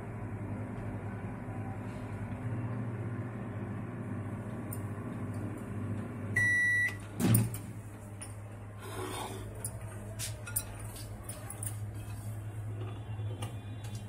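Samsung microwave oven running with a steady low hum. About six seconds in comes a single beep, then a sharp knock as the door is opened, followed by scattered light clicks and knocks.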